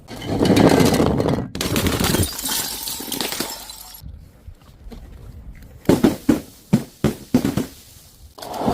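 Glass bottles breaking and shattering: two long crashes of breaking glass at the start, then a quick run of about six sharp glass impacts about two-thirds of the way in, and another crash starting at the end.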